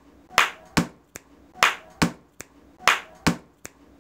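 Hands beating out a repeating clap, tap, snap pattern: a hand clap, a tap and a finger snap in turn. The group comes round three times, about once every second and a quarter.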